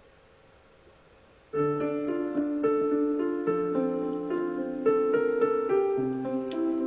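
Piano starting, about a second and a half in, with steady repeated chords over a lower bass note as the song's introduction; before that, near silence.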